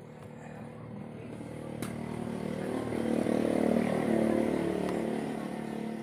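A motor vehicle passes by, its engine growing louder to a peak a little past the middle and then fading away.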